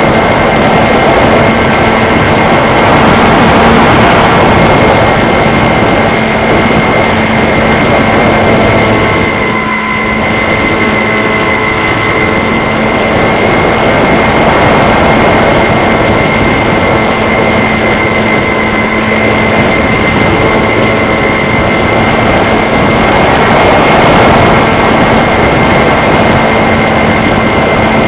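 Model airplane's motor and propeller running steadily at flight throttle, a constant high whine over a loud rush of air, with a slight dip about ten seconds in.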